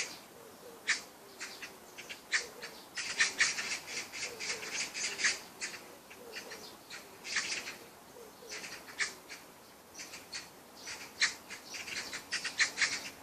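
A bird calling in short, sharp chirps that come in quick runs, with pauses between them.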